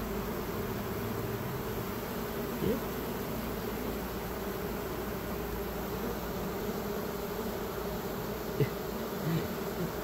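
Steady, dense hum of a honey bee swarm, thousands of bees crawling and flying at a hive entrance, certainly loud. Once, about a quarter of the way in, a single bee buzzes close by with a brief rising buzz.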